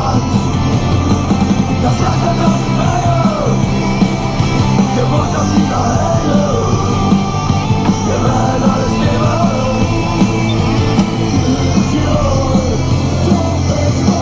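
Rock music with German singing plays throughout, over the steady low drone of a tractor engine.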